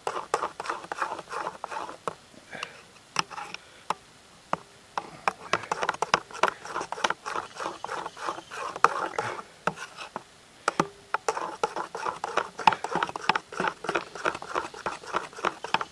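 Quick, irregular clicking and scraping of a utensil stirring a mixture in a bowl, with two short pauses.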